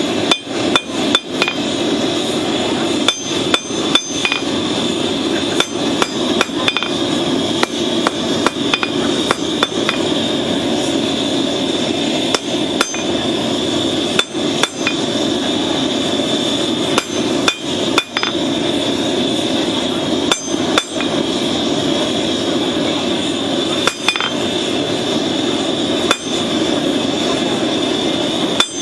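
Hand hammer striking red-hot horseshoe-rasp steel on an anvil as it is drawn out into a blade: sharp, irregular blows in quick runs with short pauses, some leaving a brief ring. Under the blows runs the steady roar of the forge.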